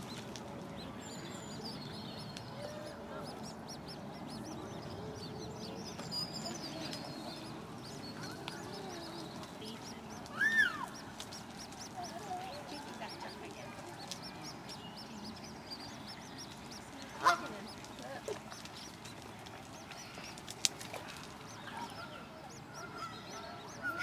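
Eurasian coot family at the nest: faint high peeping from the newly hatched chicks now and then, and about ten seconds in a single loud call that rises and falls in pitch from an adult coot. A sharp click comes later.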